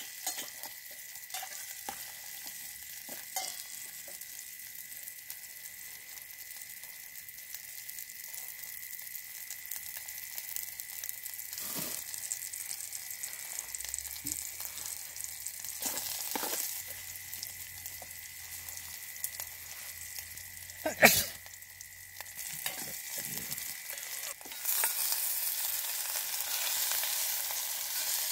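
Chopped onions, green chillies and garlic sizzling in a little oil in a steel pot on a portable gas stove, with a steel spoon now and then scraping the pot. One sharp knock comes about three-quarters of the way through. Shortly after, the sizzle gets louder as chopped tomatoes go into the pot.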